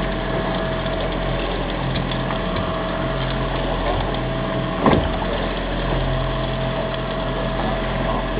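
Fishing boat's engine running steadily, heard on board, with a constant hum and tone. A single sharp knock sounds about five seconds in.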